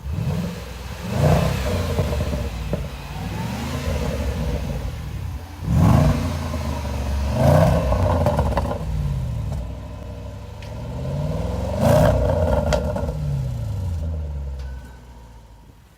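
Range Rover Sport SVR's supercharged 5.0-litre V8 revved in four sharp blips, each climbing quickly and then falling slowly back down. The engine sound fades away near the end.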